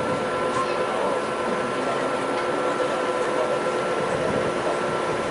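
Class 234 diesel locomotive with a 16-cylinder Kolomna engine, running steadily at idle as it is turned on a turntable: an even mechanical rumble with a few steady whining tones over it.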